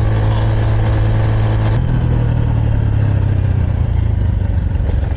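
Honda Super Cub's small single-cylinder engine running steadily, its note shifting about two seconds in.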